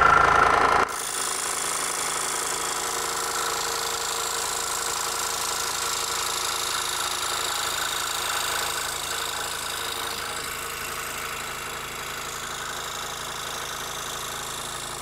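Benchtop scroll saw with a spiral blade running and making a straight cut, its blade stroking rapidly up and down. It is loudest for about the first second, then runs steadily, easing a little in the second half.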